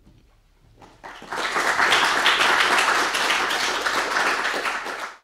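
Audience applauding, starting about a second in and building quickly to a steady, dense clapping that cuts off suddenly.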